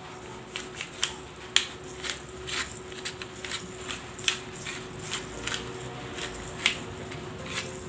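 A hand-twisted pepper mill grinding peppercorns, with irregular sharp clicks and crunches about twice a second. A faint steady hum runs underneath.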